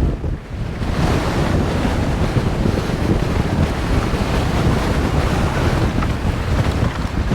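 Strong gusting wind blasting across the microphone: a loud, continuous low rumble with hiss that thickens and spreads higher about a second in.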